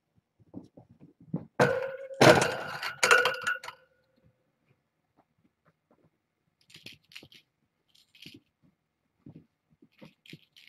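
A hard object clattering for about two seconds, with a clinking ring that dies away, then faint light taps and rustles.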